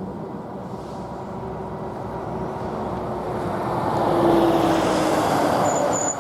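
Train passing over a level crossing: a steady rumble that swells about four seconds in, with a brief high squeal near the end.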